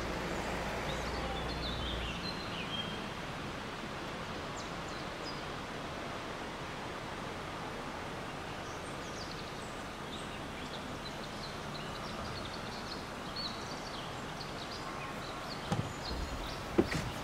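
Outdoor street ambience: a steady wash of background noise with faint, brief high chirps from birds. Near the end come a few sharp knocks as a car door is opened.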